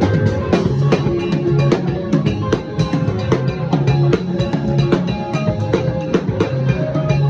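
Band music: a drum kit plays a steady, busy beat over bass and guitar.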